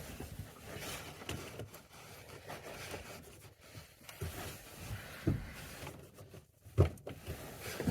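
Plastic handling sounds from the Ford Fusion tail light assembly and its bulb socket being worked loose by hand: light rubbing and scraping with scattered clicks and a few sharper knocks, the loudest near the end.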